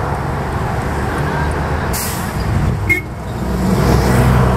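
City street traffic: vehicle engines running steadily, with a short hiss about two seconds in and a sharp click just before three seconds. Near the end a heavier engine grows louder.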